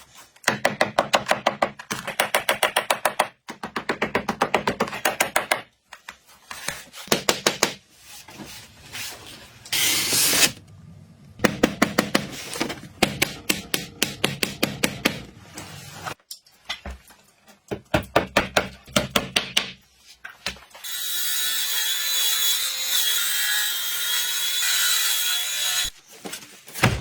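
Knife chopping fast on a wooden cutting board, in runs of rapid even strokes broken by short pauses. Near the end the chopping stops and a steady hiss carries on for about five seconds.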